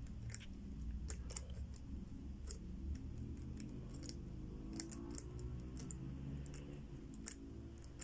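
Small irregular clicks, a few to a second, from the third number wheel of a four-wheel combination padlock being rolled digit by digit while the shackle is held under tension, feeling for the loosest wheel position to decode the lost combination. A faint low hum sits underneath.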